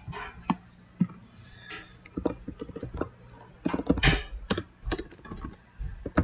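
Typing on a computer keyboard: irregular runs of quick key clicks, thickest in the second half.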